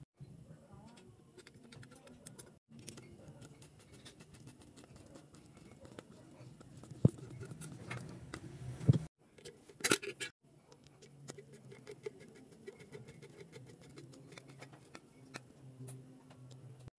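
Screwdriver driving Phillips screws into the bearing retainer plate on a Suzuki DR650 engine's aluminium crankcase: small metal-on-metal clicks and scrapes. There is a sharp click about seven seconds in and a louder cluster of clicks around ten seconds, over a faint low hum.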